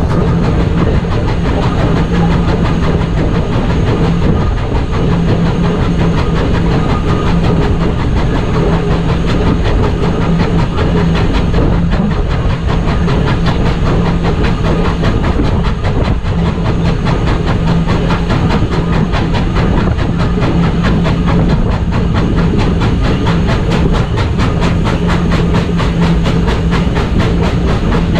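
Norfolk & Western 611, a 4-8-4 steam locomotive, running at speed, heard close up from its running board: its stack exhaust beats come in a rapid, even rhythm, with a steady low hum underneath.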